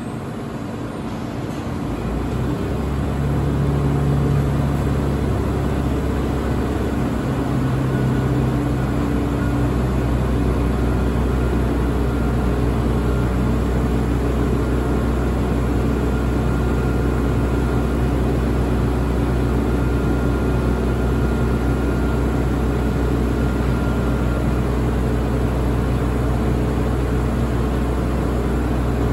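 Streetcar standing at the platform, its onboard equipment giving a steady low hum that swells in about two seconds in and then holds even.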